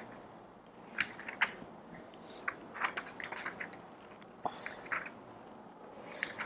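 Faint, irregular crinkling and clicking, about a dozen short crackles like crumpled paper, the sharpest about one second in.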